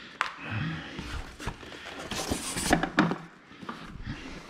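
Unboxing noises: cardboard and foam packaging rustling, with a string of small knocks and clicks as a clear plastic food processor bowl is lifted out of its box.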